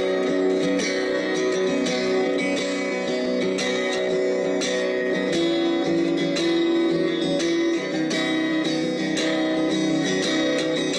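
Background music: guitar playing with strummed and plucked notes.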